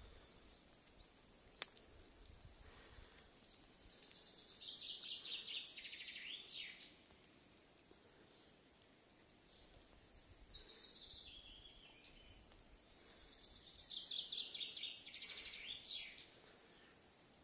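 Nightingale singing: three phrases of fast repeated notes and trills, a few seconds apart, the last one the longest.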